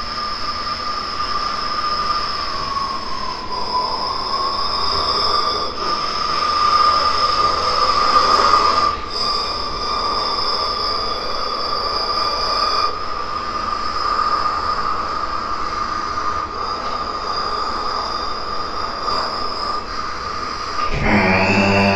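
A fire engine siren sound, a steady high wail that dips slightly and swells in loudness. Near the end comes a short, lower horn-like blast.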